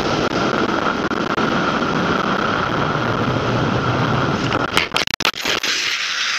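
Steady engine and road noise of a moving car, with a constant whine running through it. About five seconds in come a few sharp clicks and brief dropouts, after which the low rumble is weaker.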